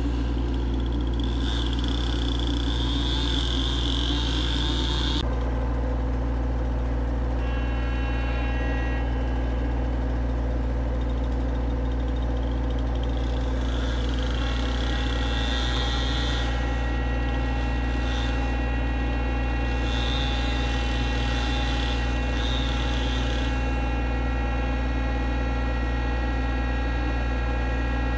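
Chainsaw engine idling with a steady low drone, holding one pitch throughout, with a few short stretches of higher hiss that start and stop abruptly.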